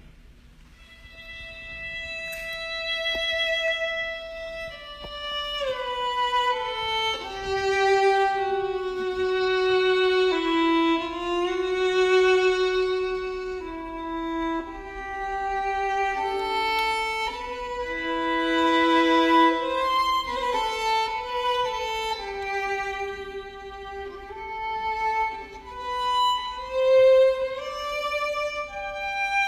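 Solo violin playing a slow melody, coming in softly about a second in, with long held notes and slides between them.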